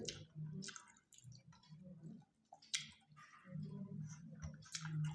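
People eating rice with their hands: chewing and wet mouth clicks, with soft squishing as fingers mix rice on steel plates.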